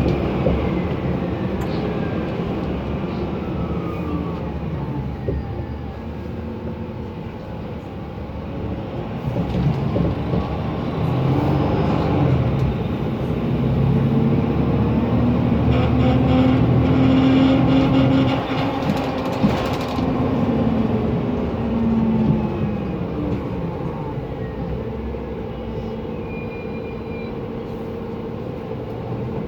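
Mercedes-Benz Conecto NGT city bus running on its M 936 G natural-gas engine, with its loud cooling fan, while driving: the pitch falls at first, rises through the middle as the bus gathers speed, and falls again about two-thirds of the way through.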